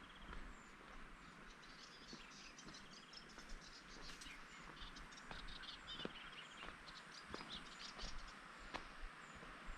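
Faint countryside ambience of small birds and insects chirping in quick, irregular bursts, with a few soft footsteps.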